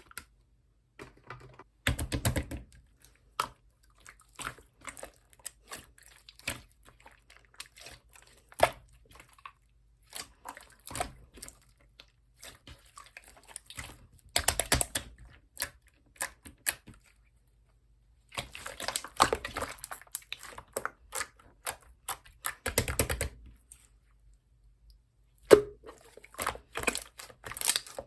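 Slime being squeezed and poked by hand, giving irregular crackling clicks and small pops, with a few louder bunches of crackles between short pauses.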